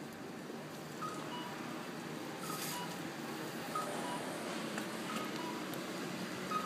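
Audible pedestrian crossing signal chiming: a two-note falling electronic tone, a short high note then a lower one, repeating about every second and a half over steady traffic noise.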